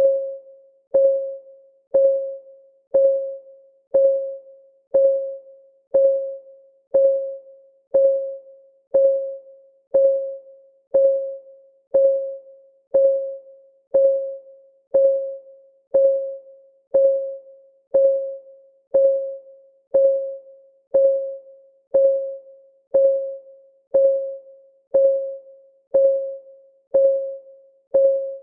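Clock-ticking sound effect of a countdown timer: one short, pitched tick every second, each dying away quickly, perfectly regular.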